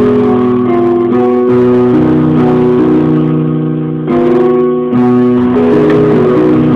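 Electronic keyboard playing a melody over held chords, its notes sustaining evenly and changing step by step.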